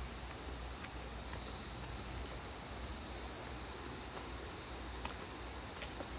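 Insects droning in one steady high-pitched tone that strengthens about a second and a half in, with light footsteps on the dirt track.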